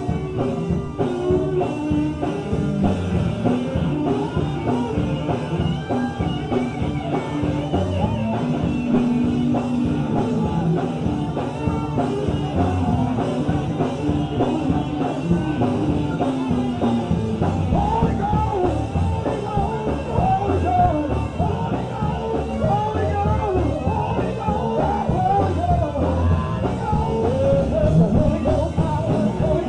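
Live up-tempo gospel music: a band with a drum kit plays a fast song while voices sing along.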